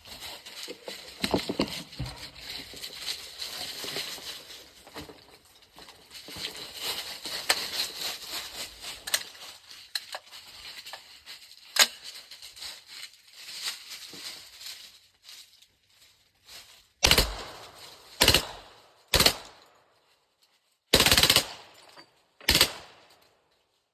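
Suppressed CMMG Banshee .45 ACP pistol, fitted with a SilencerCo Omega 45K and a Rare Breed FRT forced-reset trigger, firing five short rapid-fire bursts in its last seven seconds. The first fifteen seconds before the bursts hold only hiss and a few scattered sharp clicks.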